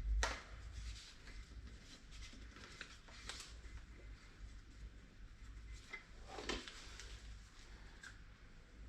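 Light clicks and knocks of plastic parts being handled and fitted together while a pressure washer is assembled, with a sharper click just after the start and another about six and a half seconds in.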